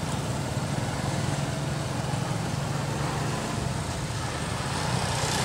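Steady low rumble of a running motor under a constant hiss.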